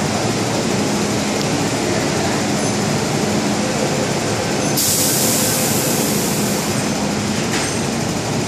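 MTR M-Train electric multiple unit standing at a platform with its doors open, a steady hum of its running equipment. About five seconds in, a loud hiss sounds for about two seconds.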